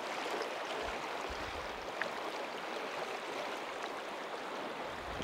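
Steady rush of flowing river water, with a few low bumps about a second in.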